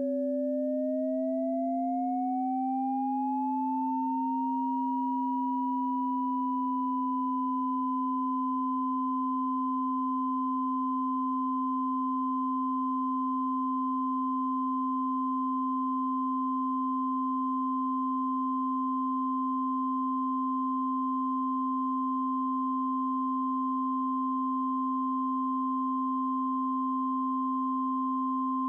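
Pure electronic sine tones. A steady low tone sounds throughout. A higher tone glides smoothly upward about an octave over the first five seconds, then holds steady two octaves above the low one, with a fainter steady tone in between.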